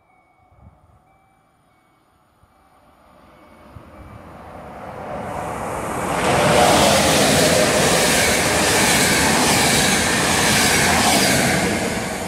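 Electric locomotive-hauled passenger train approaching and passing through at speed: wheel and rail noise swells from a faint rumble into a loud, steady rush for several seconds, then begins to fade near the end.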